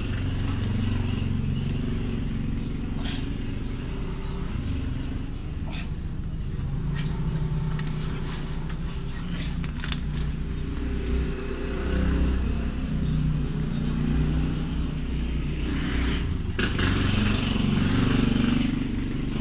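A steady low engine rumble from a running vehicle, with a few light clicks from parts being handled.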